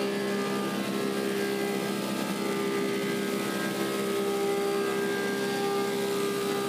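Woodmaster 725 thickness planer with a helical cutterhead running steadily, a constant motor hum under its cutterhead noise.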